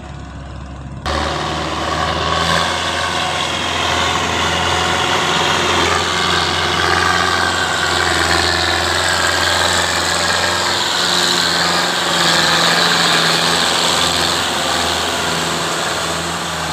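Belarus tractor's diesel engine running steadily under load as it hauls a trolley piled with sugarcane, growing much louder about a second in.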